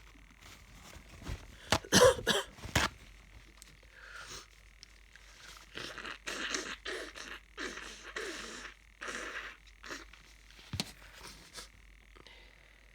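A person with a blocked nose from a cold sneezing loudly about two seconds in, then sniffing wetly about ten times in quick succession.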